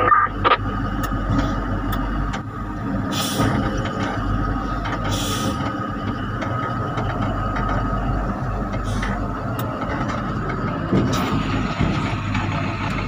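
Caterpillar 777D haul truck's diesel engine running steadily, heard from inside the cab as the truck dumps its load. There are two short hisses of air about three and five seconds in.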